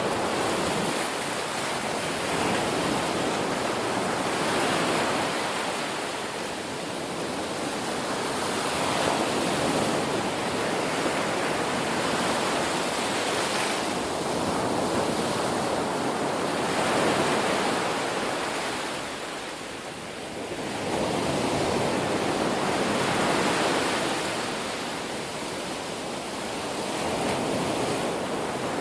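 Ocean surf: waves breaking and washing up the shore in slow, overlapping swells that rise and fall every few seconds.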